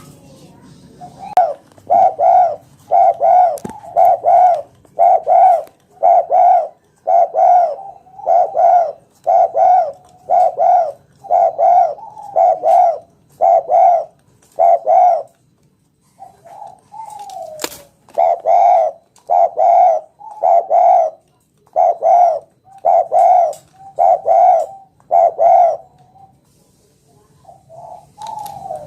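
Spotted dove (tekukur) cooing loudly in long runs of rapid, evenly spaced coos, about two a second, with a pause about halfway through and a falling slurred coo before the second run.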